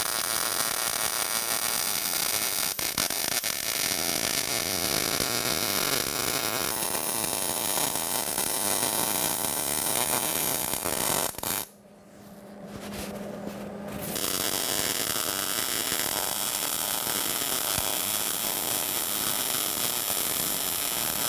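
MIG welder arc running steadily while a bead is laid on new sheet-steel patch in a mower deck shroud. The arc stops for about two seconds a little past the middle, leaving a faint low hum, then strikes again and runs on.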